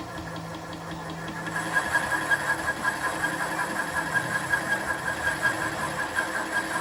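Precision Matthews PM-30MV benchtop milling machine running with a boring head in the spindle, a steady high whine with a regular pulsing beat. It gets louder about a second and a half in.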